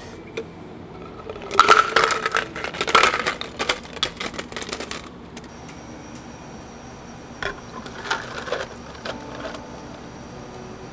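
Ice cubes scooped and dropped into a clear plastic can-shaped cup, a dense clatter lasting a few seconds. About seven seconds in come lighter clinks as a tea steeper is set on the cup and tea drains over the ice.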